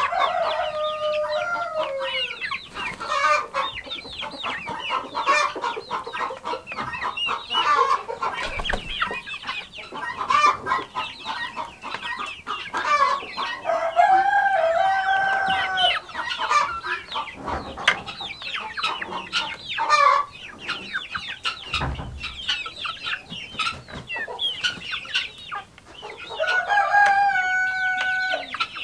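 A flock of chickens clucking and chattering without pause, with two long held calls, one about halfway through and one near the end.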